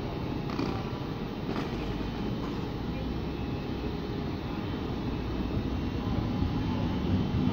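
Double-deck regional express train pulling out of the station: a steady rolling noise of the wheels on the rails, growing louder near the end as the leading cab car passes close. There are two faint clicks, about half a second and a second and a half in.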